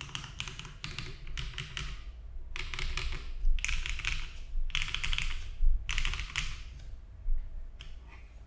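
Fast typing on a Bauer Lite mechanical keyboard with stock HMX Xinhai switches, a polycarbonate plate, no case foam and GMK Dandy keycaps: dense runs of key clacks in bursts, with a few louder single strikes, dying away near the end.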